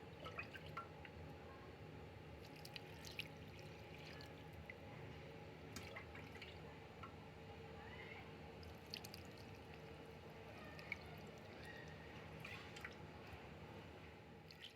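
Milk poured slowly over the back of a spoon onto rice in a clay baking pot, trickling and dripping faintly with small ticks, over a low steady hum.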